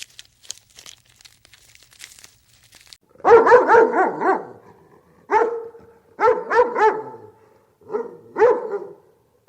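Dog barking: faint clicking at first, then about three seconds in a quick run of about five fairly high-pitched barks, followed by several more single and paired barks.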